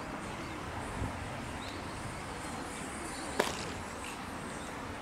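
A thrown baseball landing in a leather glove during a game of catch: one sharp pop about three and a half seconds in, over steady outdoor background noise.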